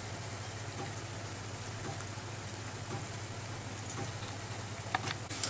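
Steady crackling sizzle of egg-and-lentil pakoras deep-frying in hot oil, over a constant low hum, with a few light clicks near the end.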